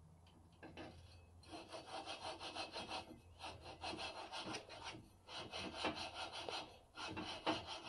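Aluminium flywheel being twisted back and forth by hand on the crankshaft taper of a Maf 71cc two-stroke engine, lapping the tapers with valve grinding paste. It makes a gritty scraping grind in repeated strokes, with a few short pauses. The sound starts faintly about half a second in and gets louder after a second and a half.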